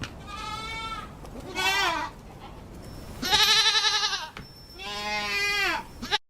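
A person imitating a goat with the voice: four quavering bleats ("음애애매"). The third is the loudest and shakiest, and the last one falls off in pitch.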